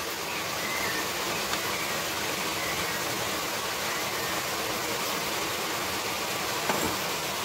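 Steady, even hiss of background noise, with one faint knock near the end.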